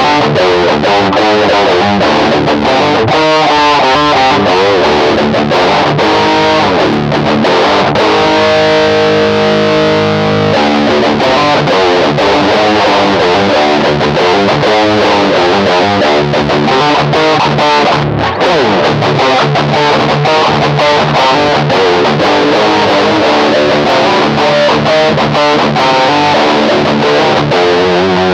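Electric guitar played through an Electro-Harmonix Metal Muff Pocket high-gain distortion pedal, with the distortion knob at twelve o'clock and the scoop switch off, giving a heavy metal tone. He plays riffs throughout and holds one chord for a couple of seconds about eight seconds in.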